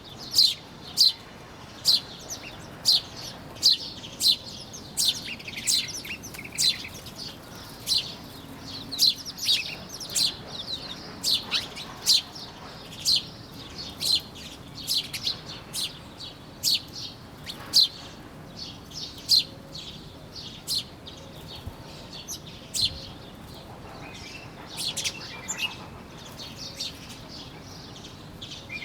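Small birds chirping: short, sharp, high chirps repeated about once or twice a second, over a faint steady background.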